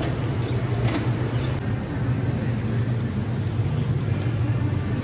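Steady low rumble of suitcase wheels rolling over a tiled floor, with a couple of faint clicks about a second in.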